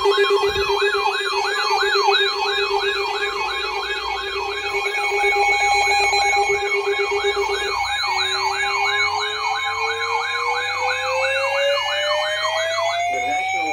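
Several electronic siren tones sounding together: a fast yelp sweeping up and down about three times a second over steady tones. About halfway through, a slow rising wail climbs in pitch, and the yelp cuts off near the end.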